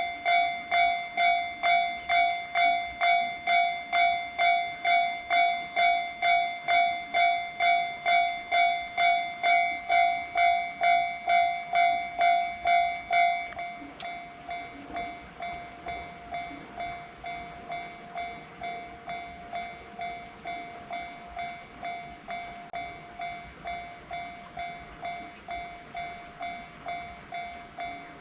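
Japanese railway level-crossing warning bell ringing its electronic 'kan-kan' tone, about one and a half strokes a second. About halfway through, the bell drops to a much quieter level and keeps ringing.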